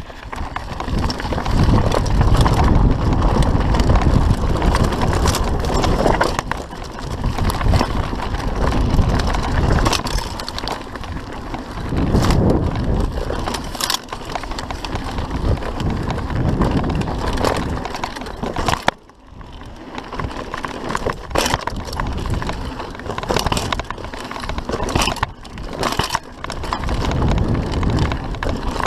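Mountain bike descending a rough dirt trail: wind rumbling on the GoPro microphone, tyres crunching over loose ground and the bike rattling and knocking over bumps. It drops quieter briefly about two-thirds of the way in.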